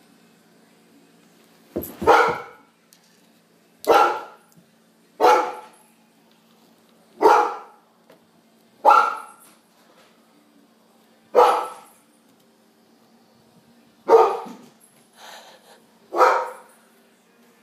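Dog barking in alarm, single barks at irregular intervals of a second or two, about nine in all. The dog is frightened, not recognising the person coming in.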